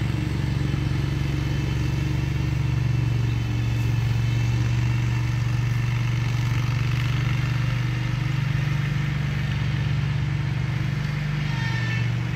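Engine of a remote-controlled mower running steadily as it mows, its note dipping and rising a few times with the load.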